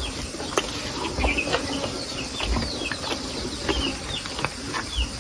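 Close-up chewing and mouth clicks during eating, with a scatter of short, falling bird chirps in the background.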